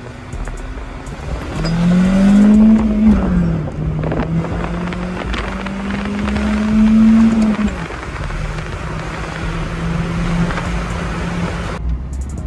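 Stock Acura RSX four-cylinder engine heard from inside the cabin, pulled hard under acceleration: the revs climb, drop at an upshift about three seconds in, then climb again. It lets off at about eight seconds and cruises steadily.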